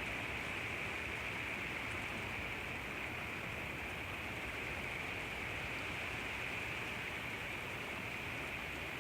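Steady rain falling, a continuous even hiss with no letup.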